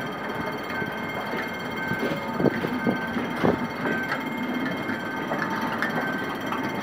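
Passenger coaches rolling slowly over a level crossing, a steady rail rumble with wheels knocking over the rail joints, loudest in a few sharp knocks around the middle.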